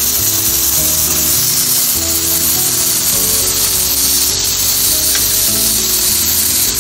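Raw wagyu beef and other meat slices sizzling on a hot electric tabletop grill as they are laid down with tongs. A steady high hiss, with background music underneath.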